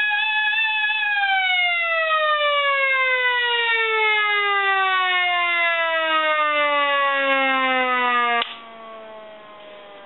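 Viking VMS-100 hand-cranked air raid siren wailing, its pitch holding for a moment and then falling steadily as the rotor winds down. About eight seconds in the sound cuts off sharply as the muffler closes, leaving a faint falling tone.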